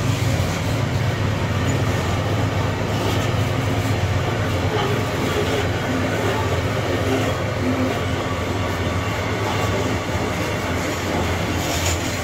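Loaded iron-ore gondola wagons of a freight train rolling past close by: steel wheels running over the rails with a steady low rumble and an occasional clack at rail joints.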